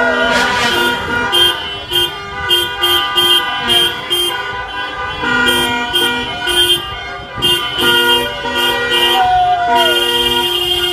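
Several car horns honking in a celebration motorcade, short toots in repeated rhythmic patterns from different cars overlapping, over the low rumble of slow traffic.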